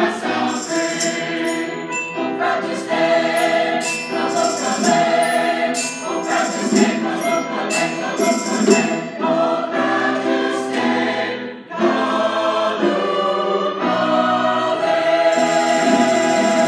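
A mixed choir of young voices singing a song in an auditorium, with instruments accompanying.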